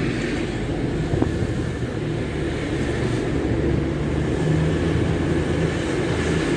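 Diesel engines of a Class 222 Meridian multiple unit running steadily at the platform: a continuous low drone with a few steady low tones.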